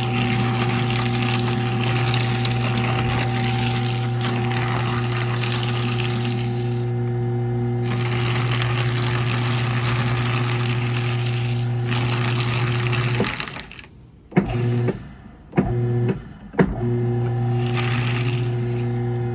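Destroyit Ideal 4005 CC cross-cut paper shredder's motor running with a steady hum while its cutters chew through paper with a crunching rustle. Partway through, the motor stops, starts and stops in several short bursts, then runs again near the end.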